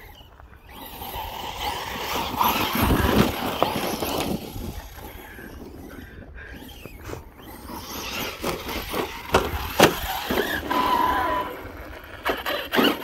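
Arrma Notorious 6S RC monster truck driving over gravel and snow: tyres scraping and crunching, with the motor whining and a few sharp knocks as it bounces about ten seconds in.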